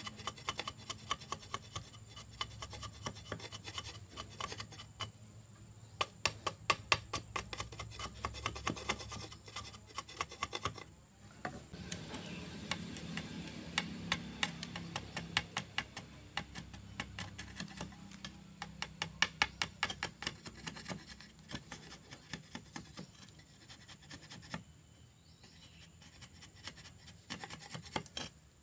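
A blade shaving a wooden stick in short scraping strokes, several a second: first a thin blade cutting into the stick, then, after a brief break about 11 seconds in, a machete whittling it down.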